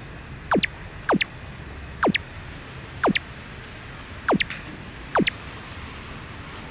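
A short electronic sound effect with a quick falling pitch, played six times at roughly one-second intervals, over a faint steady low hum.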